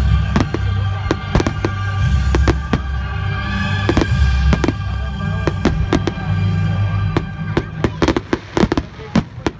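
Fireworks exploding: a run of sharp bangs and crackles, coming thicker and faster near the end, over loud music with a heavy bass line.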